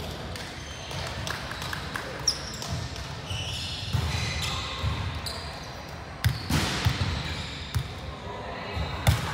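Players' voices chatting and calling, echoing in a large sports hall, with a volleyball thudding on the wooden floor a few times, loudest about six to seven seconds in and again just before the end. A brief high squeak comes about two seconds in.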